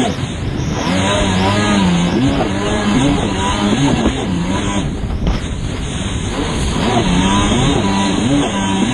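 Yamaha WaveBlaster personal watercraft's two-stroke engine at racing speed, its pitch rising and falling again and again as the throttle is worked, with water rushing and spraying around the hull.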